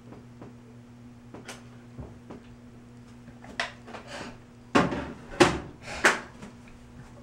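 A few light clicks, then three louder knocks or bumps about half a second apart in the second half, over a steady low hum.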